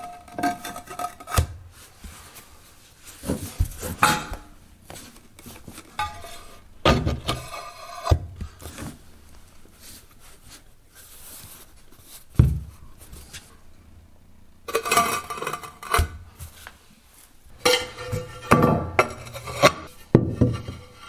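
Floor tiles being set into fresh mortar by hand: intermittent scraping and rubbing as the tiles are slid and pressed into place, with a few knocks of tile against tile.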